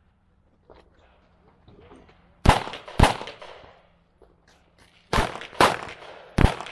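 Handgun shots: a pair about half a second apart, then about two seconds later three more in quick succession, each crack followed by a short echo.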